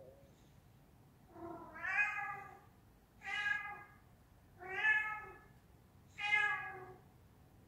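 A cat meowing four times, one call about every second and a half.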